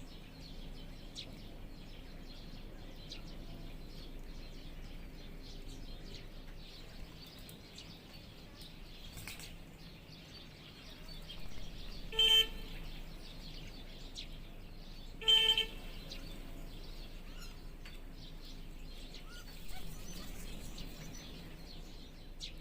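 Birds chirping and calling against steady outdoor background noise, with two short, loud horn-like toots about three seconds apart near the middle.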